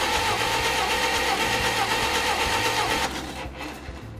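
Four-cylinder gasoline engine of a 1969 Allis-Chalmers forklift cranking over on its starter without firing, its ignition coil and fuel pump disconnected, for a compression test on cylinder two with oil in the cylinder. The cranking stops about three seconds in.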